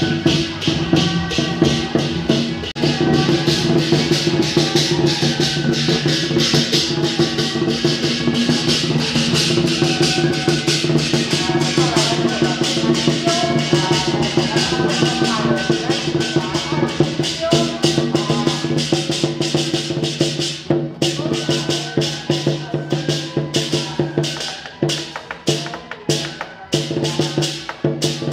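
Percussion accompanying a southern-style lion dance: a fast, dense run of drum and cymbal strokes over a steady held tone. Over the last several seconds the strokes thin out into separate hits.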